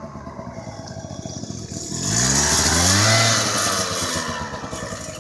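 Yamaha Vino 50 cc scooter's small engine running as the scooter rides up and passes close by, swelling to its loudest about three seconds in, its pitch rising and then falling as it goes past.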